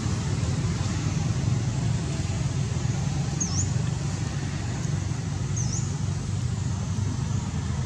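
Steady low outdoor rumble of background noise, with a small bird giving two short, high chirps, each a quick dip and rise in pitch, about three and a half and five and a half seconds in.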